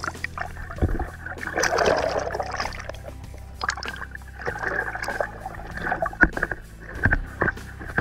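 Background music, with water splashing and many short, irregular knocks and clicks.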